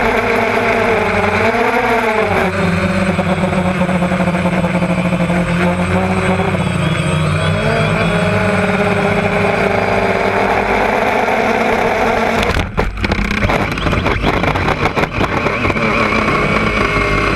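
DJI Phantom quadcopter's motors and propellers running, heard from its onboard camera, the pitch wavering as it manoeuvres. About twelve seconds in, the sound breaks off abruptly as the drone crashes into the meadow, followed by uneven crackling and buzzing as it lies in the grass.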